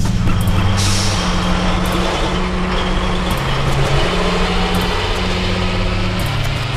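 City bus on the move: a sharp air-brake hiss about a second in that fades out, over steady engine and road noise, with a low bass line stepping between notes underneath.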